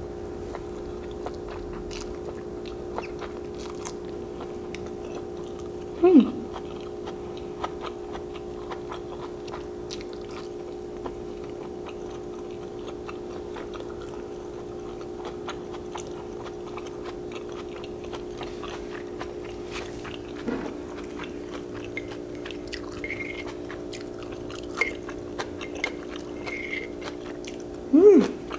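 Close-up chewing of glass noodles and stir-fried vegetables, with soft mouth clicks and small biting sounds, over a steady background hum. Two short, louder mouth sounds with a falling pitch come about six seconds in and near the end.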